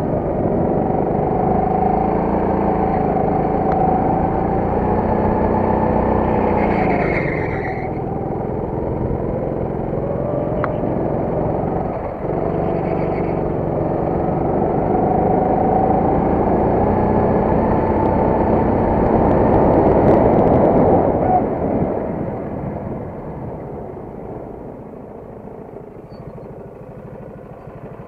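Go-kart's small petrol engine heard from on board, running hard with its pitch dropping and rising again through the corners. Over the last few seconds it falls to a much quieter low run as the kart slows to a stop.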